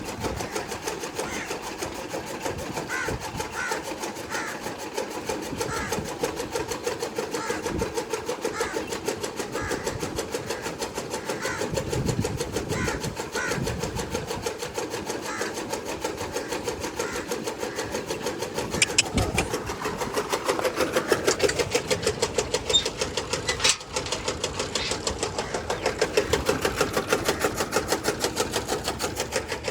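Toka chaff cutter running, its blades chopping fodder in a fast, even, steady rhythm, getting louder about two-thirds of the way through.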